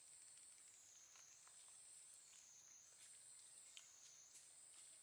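Faint high-pitched insect drone that slowly rises and falls in pitch about once a second, with a few soft clicks.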